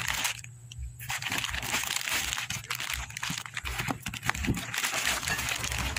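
Plastic snack packets crinkling and rustling as a hand rummages through them in a cardboard box, after a brief lull near the start.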